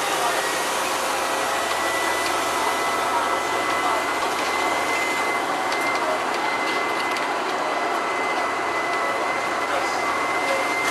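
Bus engine and road noise heard from inside, at the rear over the engine, running steadily. A thin steady high whine joins it from about two seconds in.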